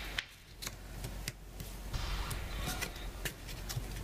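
Cardboard jigsaw puzzle pieces being handled and pressed into a frame tray, making a scatter of light, separate ticks and taps, about half a dozen in four seconds.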